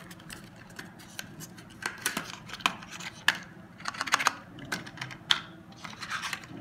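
Cardboard packaging handled by hand: irregular clicks, taps and rustles, a few sharper ones among them.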